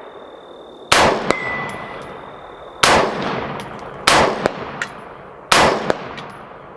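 Four rifle shots from an AR-15-style rifle, a second or two apart. At least one is followed a split second later by the clang and brief ring of the bullet striking a steel target plate.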